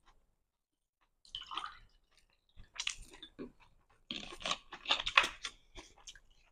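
Iced tea poured from a plastic bottle into a small glass, glugging and splashing in uneven spurts. It starts about a second in and is fullest between about four and six seconds in.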